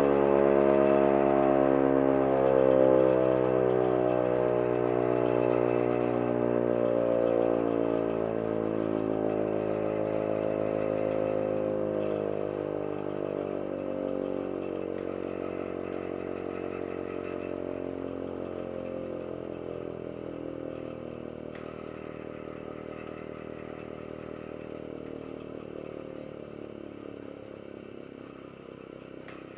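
Wartime Carter portable air raid siren running down: its wail slides slowly lower in pitch and fades steadily over about half a minute.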